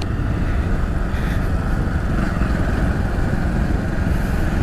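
Steady running noise of a vehicle on the move, engine and road noise, heaviest in the low end.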